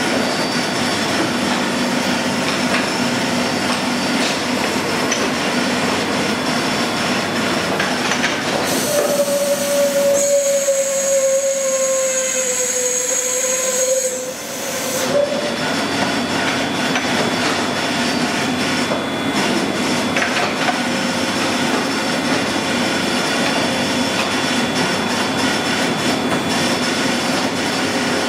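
Union CBFT 105 CNC table-type horizontal boring and milling machine running, a steady mechanical whir with several whining tones. From about 9 to 15 seconds in, a louder whine joins that sinks slightly in pitch and then stops.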